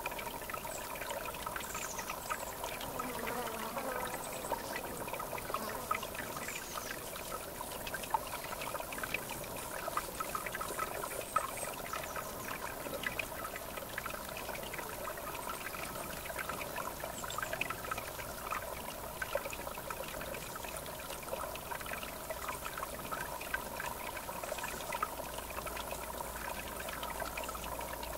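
River water trickling and lapping at the bank, a steady stream of small splashes. Faint short high chirps from birds come through a few times.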